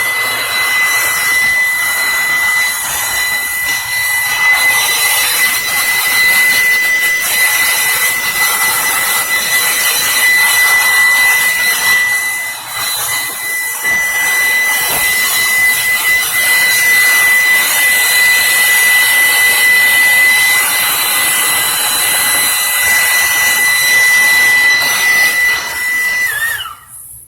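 Electric air blower running with a rush of air and a steady high motor whine while dust is blown out of a mixing console. Near the end it is switched off, and the whine drops in pitch as it cuts out.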